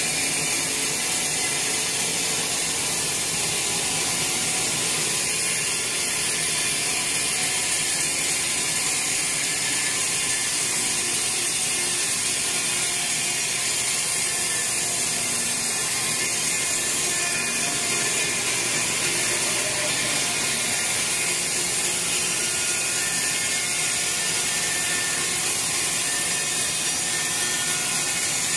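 Sawmill band saw running and cutting a large teak log lengthwise into boards: a steady, unbroken mechanical noise with a strong hiss and no pauses.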